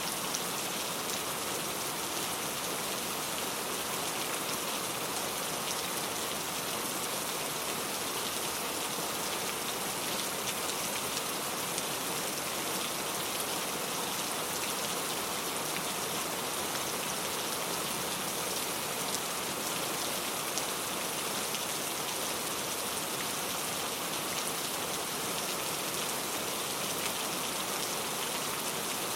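Steady rain falling, a constant hiss with many fine individual drop patters on a surface.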